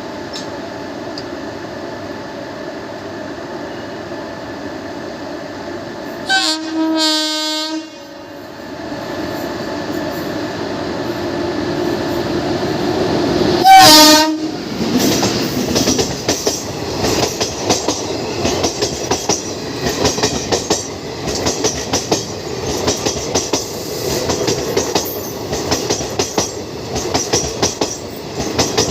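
Indian Railways express train approaching with a steady rumble. Its horn sounds twice: a blast of about a second and a half, then a short, louder blast as it draws level. The coaches then pass with a fast rhythmic clickety-clack of wheels over the rail joints.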